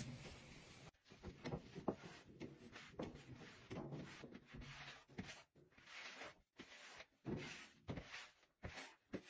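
Faint, irregular brushing and scraping strokes of a long-handled broom on a laminate floor, with a few light knocks as debris and items are moved.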